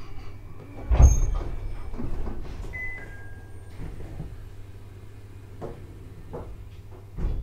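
Inside an Abukuma Express AB900 series electric train at a station stop: a heavy thump about a second in, two short electronic beeps, and scattered clunks of the push-button doors, over a steady low hum from the car's equipment.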